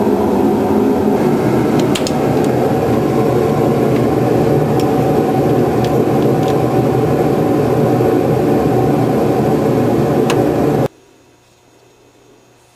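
A loud, steady mechanical whir with a low hum underneath and a few faint clicks over it, cutting off abruptly about eleven seconds in.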